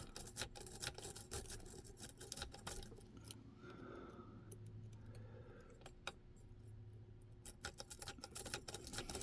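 Faint clicking and scraping of a lock pick and tension wrench working the pin tumblers of a front door latch's lock cylinder under light tension. The clicks come thick for the first few seconds, thin out to a few single clicks in the middle, then come thick again near the end.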